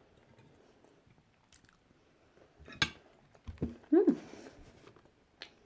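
A person chewing a mouthful of food, with a couple of sharp mouth clicks and a short, falling hummed "mm" about four seconds in.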